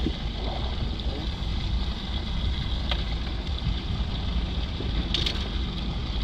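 Wind rumbling on the microphone over a steady hiss, with a click about three seconds in and a short splash of water about five seconds in as a bass is grabbed from the boat's livewell.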